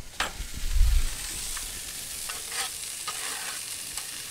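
Food sizzling on a hot Blackstone griddle, a steady hiss, with a dull thump about a second in and a few light clicks and knocks in the middle.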